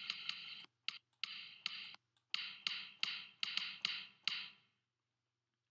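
Redrum drum-machine bass drum sample in Reason triggered a dozen or so times in an uneven rhythm, each hit smeared by the RV-7 digital reverb's tail. The hits stop about four and a half seconds in.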